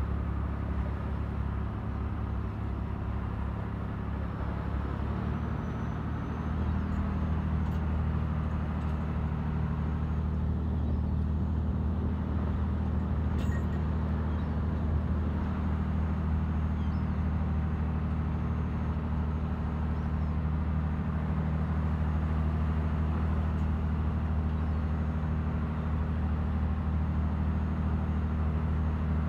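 A fishing trawler's diesel engine running steadily under way, a deep even hum, with sea water rushing past the hull. About six seconds in the engine note shifts slightly and gets a little louder.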